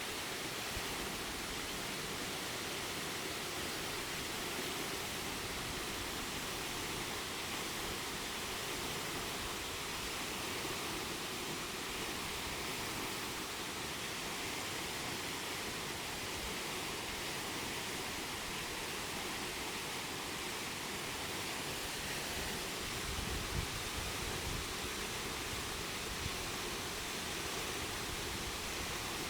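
Steady, even rush of a waterfall's falling water, with a brief low rumble about three-quarters of the way through.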